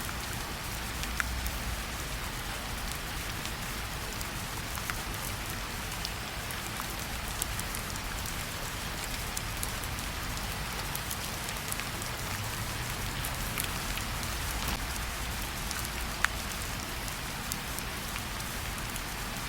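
Steady rainfall, an even patter with scattered single drops ticking sharply.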